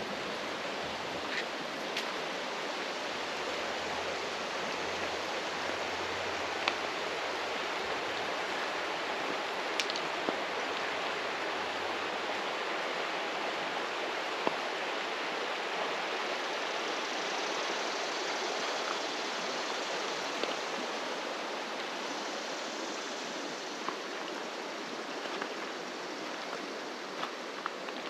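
Shallow, rocky river flowing: a steady rushing of water, with a few faint ticks of small splashes.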